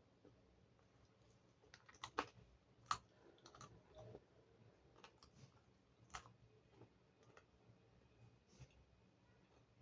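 Close-miked chewing of pizza: scattered crisp clicks and soft mouth sounds, with the sharpest ones about two, three and six seconds in.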